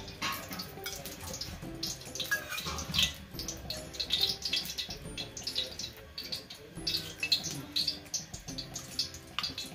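Ghee melting and sizzling in a hot aluminium kadhai, with irregular small crackles and pops throughout as it heats before the grated carrots go in.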